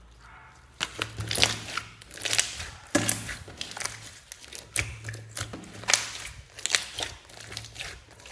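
Slime being mixed and squished by hand, giving a dense run of irregular pops and crackles that starts about a second in.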